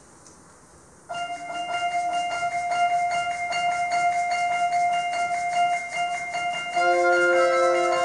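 A symphonic wind band begins a piece: a single held note enters sharply about a second in, with a quick even pulse behind it, and near the end more instruments join below it to build a sustained chord.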